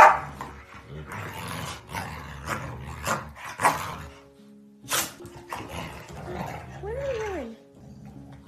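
Dogs growling and barking while play-wrestling, in short bursts, the loudest right at the start, over background music.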